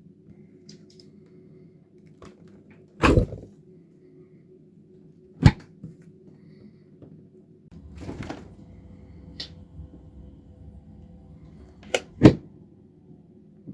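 Refrigerator and freezer doors being opened and shut: sharp knocks of a door closing at about three seconds, five and a half seconds, and a double knock near the end, with a softer opening sound around eight seconds. A steady low hum runs underneath.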